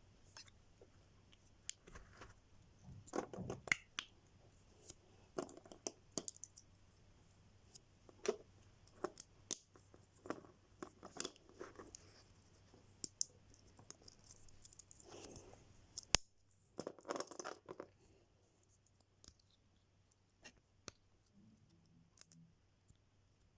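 Lego pieces and their plastic packaging being handled: irregular small clicks, taps and rustles, sparser in the last few seconds.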